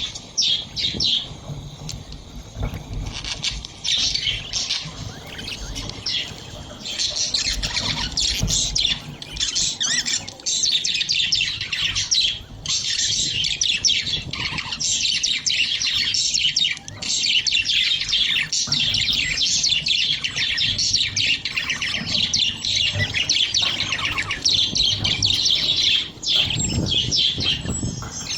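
Many budgerigars chattering together: a dense, continuous stream of quick chirps that thins out briefly a few times.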